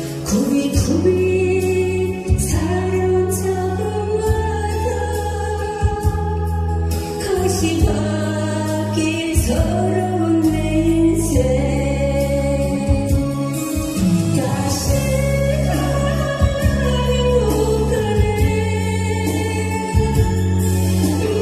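A woman singing a Korean trot song live into a handheld microphone over a backing track, with a steady beat and bass under her voice.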